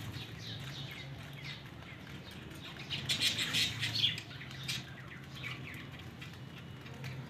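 Birds chirping in short, high, falling calls, busiest about three to four seconds in, over a steady low hum.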